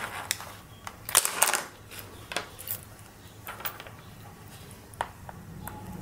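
Light clicks and taps of multimeter test probes, a reed switch and small parts being handled on a tabletop: a cluster about a second in and a sharper single click near the end.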